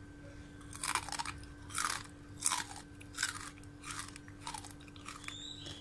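A person chewing crisp deep-fried dried anchovies (ikan bilis goreng kering), about seven crunches spaced half a second to a second apart. The crunch is the sign that the anchovies have stayed crisp.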